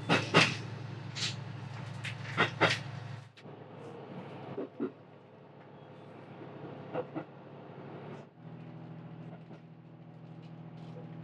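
HB-E300 diesel-hybrid railcar running along the line, heard from inside: a steady low engine-and-motor drone. Several sharp clicks and knocks come in the first three seconds. The drone drops abruptly about three seconds in and a steadier hum returns about eight seconds in.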